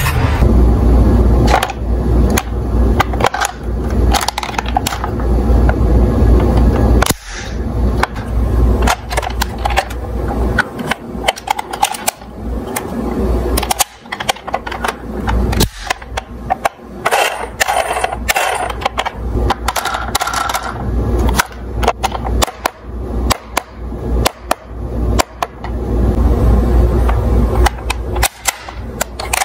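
Plastic toy cars clattering and knocking as they are handled, with many sharp clicks and taps.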